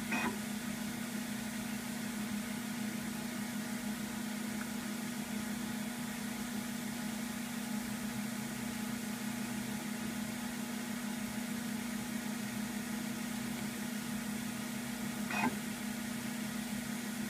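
Macintosh SE running as it starts up, with a steady low whirring hum from its cooling fan and spinning hard drive. There is a short click near the start and another about two seconds before the end.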